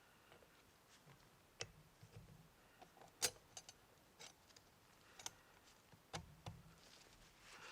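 Scattered light clicks and taps of a brake caliper's metal H-clip and slide pins being fitted by hand, about a dozen over the span, the sharpest one a little past the middle.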